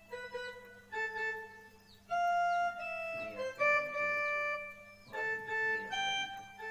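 Casio portable keyboard playing a slow single-note melody, one held note after another, each lasting about half a second to a second. A faint steady hum runs underneath.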